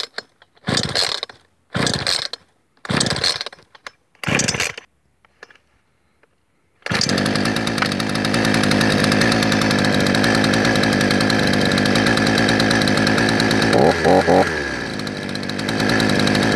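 Two-stroke engine of a Chinese 'China 3800' chainsaw being pull-started warm, without choke: several quick recoil-starter pulls about a second apart, then about seven seconds in the engine catches and keeps running steadily, with three quick louder pulses of engine noise near the end.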